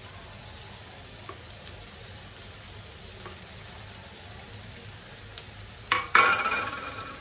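Chopped vegetables sizzling softly in a kadai while mashed boiled potato is scraped in from a steel bowl with a silicone spatula. About six seconds in, the steel bowl clanks down on the counter and rings briefly.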